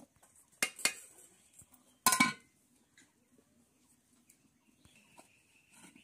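Metal cookware clanking: two quick clinks, then a louder, ringing clank about two seconds in as a metal plate is set as a lid on the cooking pot. A few faint small clinks follow.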